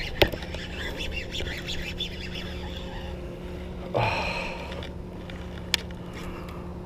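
Fishing reel cranked to retrieve a lure. About four seconds in there is a short splash as the lure comes out of the lake fouled with a clump of weed.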